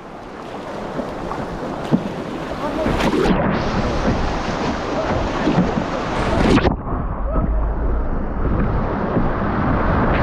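River rapid: rushing white water growing louder as the boat runs into the standing waves, with waves splashing over the bow and wind rumbling on the microphone. About two-thirds of the way through the sound turns duller as water washes over the camera.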